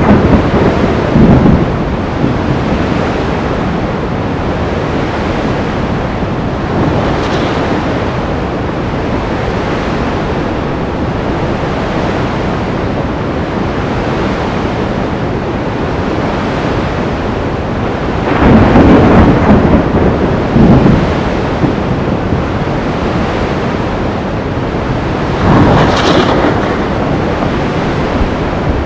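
Sea storm: a steady roar of wind and surf, with three louder surges: one about a second in, a long one around two-thirds of the way through, and one near the end.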